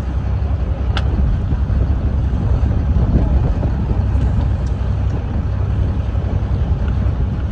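Fishing boat's engine running with a steady low rumble, with a single sharp click about a second in.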